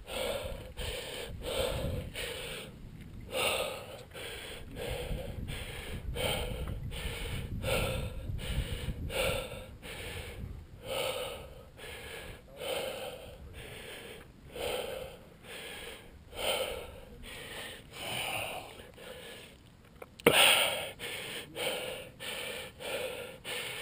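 A climber's heavy, hard breathing close to the microphone, one breath roughly every second, the sound of a man out of breath from hauling himself up the Half Dome cables. A single sharp knock cuts in once, about 20 seconds in.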